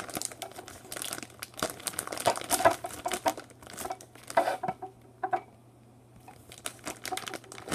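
Silver metallic plastic mailer crinkling and crackling as hands pull its cut opening wider, in irregular handfuls with a short quieter lull a little past the middle.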